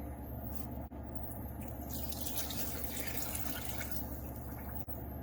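Water pouring steadily into a pot, being measured out for a sugar-and-water light syrup.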